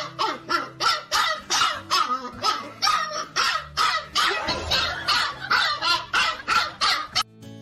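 A dog barking over and over in a quick, even rhythm, about three barks a second, stopping shortly before the end.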